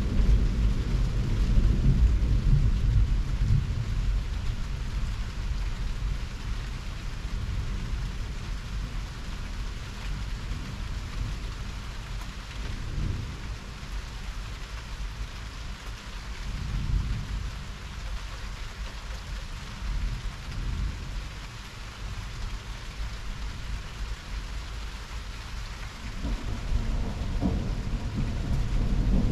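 Heavy thunderstorm: steady rain with rolling thunder rumbling underneath. The rumble is loudest in the first few seconds, swells briefly a few times in the middle, and builds again near the end.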